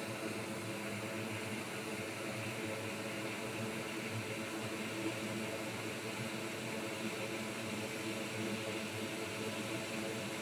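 Hot air rework station blowing on a MacBook Air logic board to solder a replacement chip: a steady rush of air with a low hum under it, the airflow set lower than the technician usually uses.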